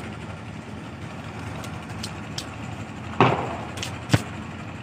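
Beretta 30-bore pistol being handled between strings of fire: a loud clack about three seconds in and a single sharp click about a second later, over a steady background rumble.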